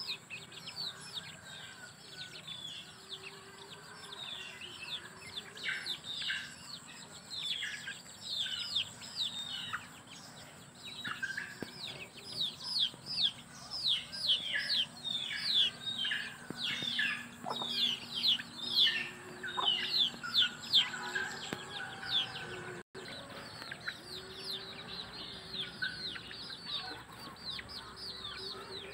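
Chicks peeping: many quick cheeps, each sliding downward in pitch, thickest in the middle stretch, with occasional low clucks from an adult hen.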